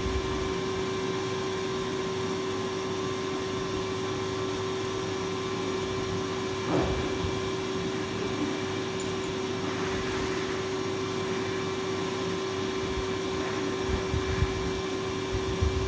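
Steady electric drone and hum of a Tullu-type domestic monoblock water pump running, lifting the supply water, with a couple of soft knocks from the meal plate.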